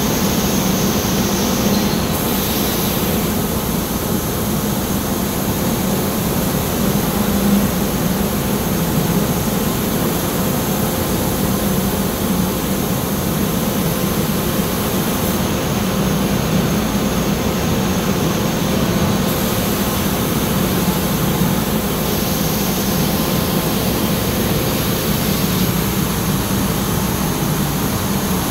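Amada FO CO2 laser cutting machine cutting steel plate: a steady, loud rushing noise with a low hum and a faint steady tone.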